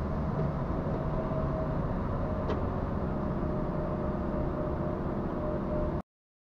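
Truck on the move: steady engine and road noise with a faint hum, and a single faint click about two and a half seconds in. The sound cuts off suddenly near the end.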